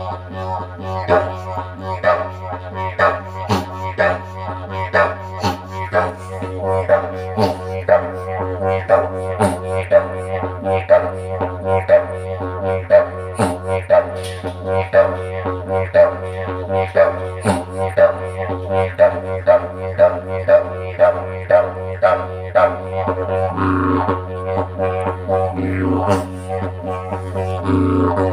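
Didgeridoo played with an unbroken low drone, its tone shaped into a rhythmic pattern of pulses at about two to three a second.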